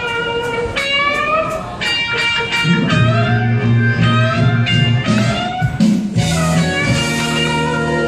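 Blues music with no vocal: an electric guitar solo of bent, sliding notes over a bass line and backing band.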